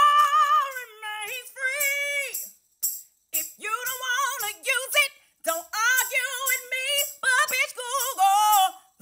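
A woman singing solo in a loud, belting voice, holding long wavering notes, with short breaks between phrases.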